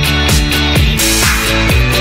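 Background music with a steady driving beat of about four drum hits a second, and a brief wash of hiss about a second in.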